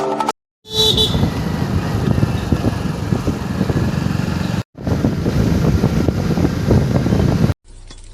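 Wind buffeting the microphone and engine and road noise from riding pillion on a moving motorcycle. The rumble runs steadily, with a brief break about a second from the end of the first half where the video cuts.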